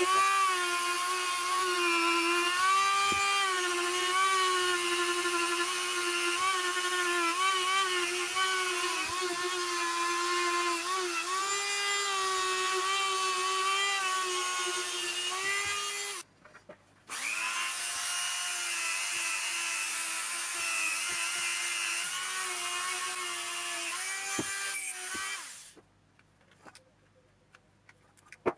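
A handheld rotary tool runs at high speed with a steady whine, scrubbing rust off the steel housing and end cap of a car heater blower motor. Its pitch wavers as the bit bears on the metal. It cuts out briefly about two-thirds of the way in and starts again, then winds down and stops a few seconds before the end.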